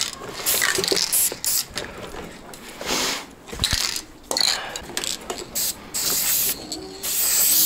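Aerosol spray-paint cans hissing in short bursts, with rattling clicks of the cans being handled and shaken in between and a dull thud about halfway. A longer, unbroken spray starts near the end.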